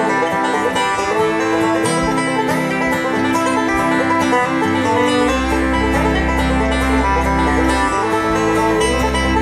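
Bluegrass band playing an instrumental: rapid banjo picking over fiddle, acoustic guitar and upright bass, with a deep held bass note in the middle of the passage.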